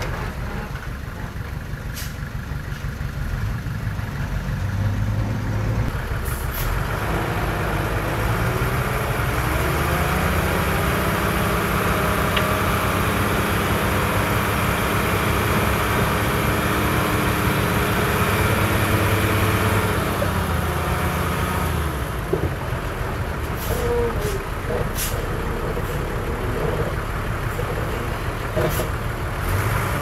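Heavy earth-moving machine's engine running, picking up speed and load about six seconds in, holding there for some fifteen seconds, then dropping back to a lower speed. A few sharp knocks come in the second half.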